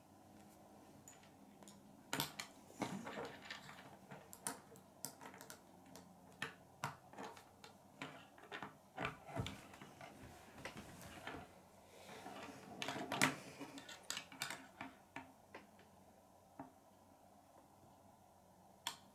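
K'nex plastic rods and connectors clicking and snapping together as they are handled and knocked against a wooden tabletop, in scattered, irregular clicks.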